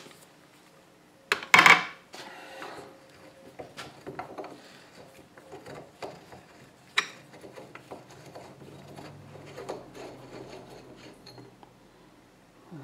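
Metal handling on a Ford power steering gearbox: a loud metal clank about a second and a half in as the breaker bar and homemade socket come off, then light clicks and metal-on-metal rubbing as the loosened threaded part is spun off by hand and lifted away.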